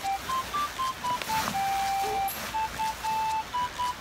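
A simple melody of plain, beep-like electronic notes, one note at a time, stepping up and down in pitch with one longer held note. A brief rustle of gear sounds about halfway through.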